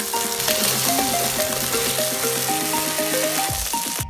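Cubed potatoes sizzling as they fry in hot oil in a non-stick frying pan, a steady dense hiss, with light background music playing over it.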